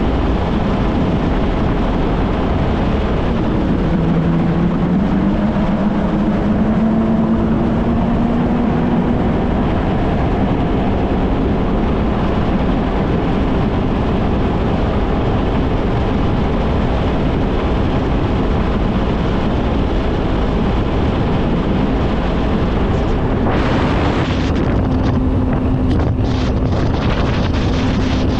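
Kawasaki Ultra 160 LX-S jet ski's naturally aspirated four-cylinder engine running under way, with wind rushing over the microphone. About four seconds in the engine note dips and then climbs back up, and it holds steady after that. Near the end the hiss becomes uneven and choppier.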